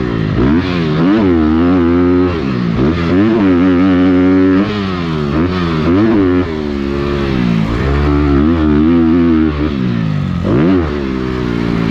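Dirt bike engine heard from the rider's on-board camera, racing under hard throttle: the revs climb and drop again and again as the rider opens and closes the throttle and shifts gears.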